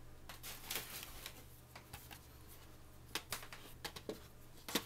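Faint rustling and light taps of a DVD case and magazines being handled and laid out on a tabletop, with a few sharper clicks in the last two seconds.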